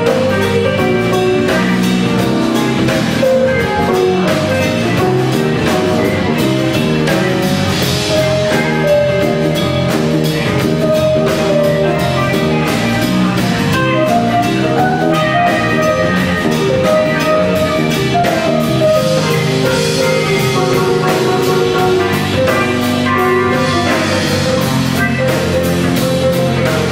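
Live band playing an instrumental piece led by an electric bass, with drum kit and electric guitar backing.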